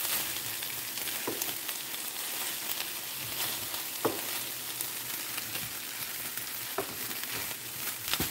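Brussels sprouts, apple and bacon sizzling in a nonstick frying pan while a utensil stirs them. A few sharp clicks come from the utensil knocking the pan.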